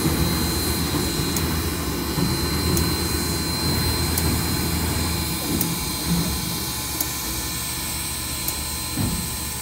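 Railroad turntable driven by its 25-horsepower electric motor, turning a steam locomotive: a steady low rumble with hiss and a thin high whine over it. The rumble eases off about halfway through as the table comes round to the track, and a single low thump comes near the end.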